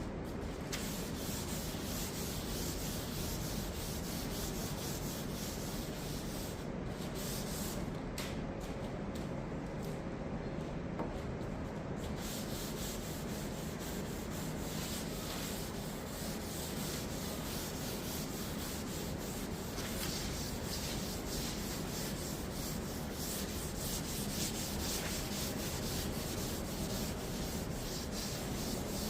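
3M maroon abrasive pad wet with mineral spirits scrubbed back and forth over a stripped dresser top, a steady continuous scratchy rubbing. It is lifting the gummy residue of the old finish left after chemical stripping.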